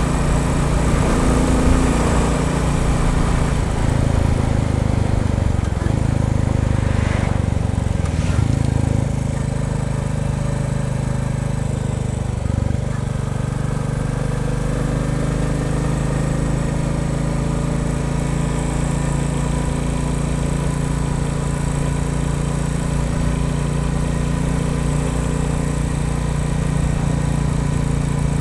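Royal Enfield Bullet 350's single-cylinder engine running steadily. About nine seconds in, its note shifts and it drops a little in level, then runs on evenly.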